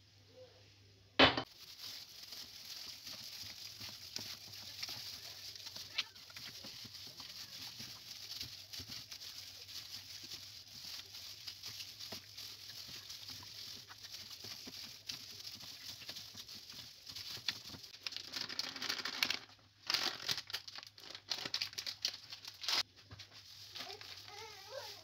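Plastic bag worn as a glove crinkling and scrunching as a hand rubs marinade into raw chicken breast fillets, louder in bursts near the end. A single sharp knock about a second in.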